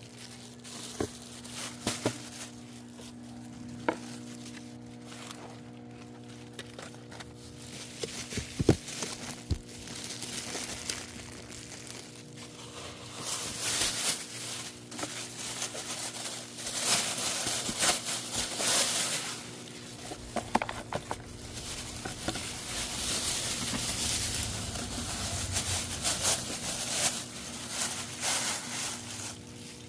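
Crinkling and rustling of cat food packaging being handled to feed street cats, with scattered clicks and taps, over a steady low hum.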